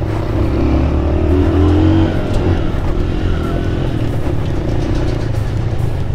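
Aveta RangerMax Explorer 130 motorcycle's small engine running while riding at low speed, pulling a little harder about a second in and easing back after two seconds.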